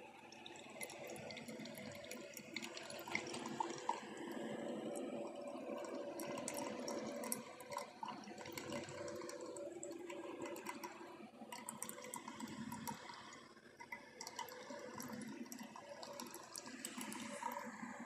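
Vimukun single-serve pod coffee maker brewing: hot water gurgling and trickling into the mug, with small irregular pops.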